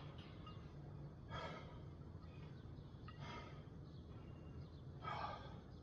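A man's hard, breathy exhalations under effort during a set of weighted dips, three of them about two seconds apart, as he tires near the end of the set.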